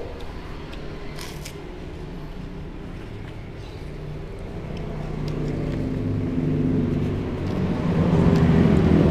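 A motor vehicle's engine running and growing steadily louder through the second half. There is a short crackle about a second in.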